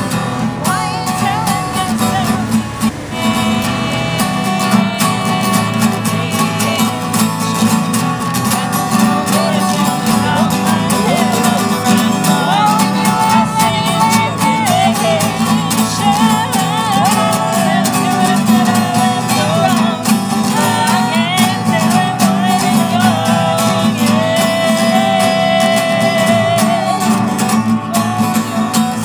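Acoustic guitar music with a wavering melody line coming in over the accompaniment about twelve seconds in.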